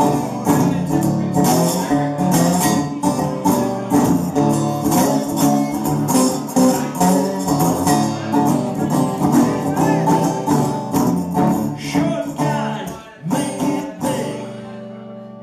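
Live music: a guitar strummed hard in a quick, steady rhythm, ending about fourteen seconds in with the last chord ringing out.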